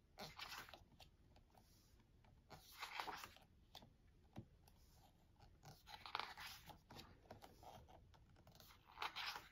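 Glossy pages of a photo book being turned by hand: four faint papery swishes, about three seconds apart.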